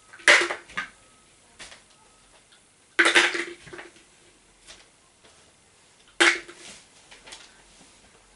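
Paint splattering onto a board in three short, loud bursts about three seconds apart.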